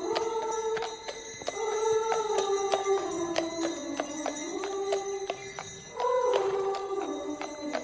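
A high voice sings a slow melody in long, mostly falling phrases. Under it runs a steady clop of horse hooves on cobblestones, about three sharp clicks a second.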